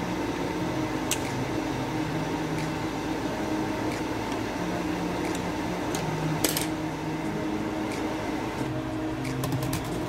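Stainless steel pot of water at a rolling boil on the stove, rice noodles cooking in it: a steady bubbling rush. A few sharp clicks cut in, the loudest about six and a half seconds in.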